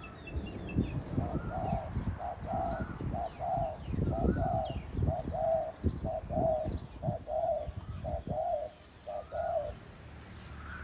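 Decoy dove cooing: a run of short, low coos, about two a second, that stops near the end. A low irregular rumble lies underneath.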